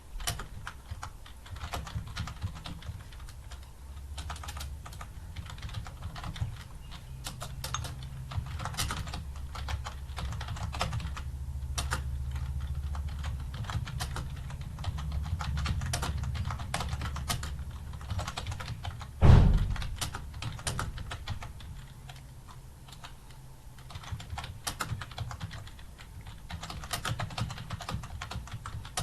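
Computer keyboard typing at a steady pace: rapid, irregular key clicks. One loud thump stands out about two-thirds of the way through.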